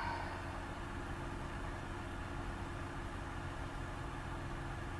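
Steady low hum with an even hiss: background room noise, with no distinct event.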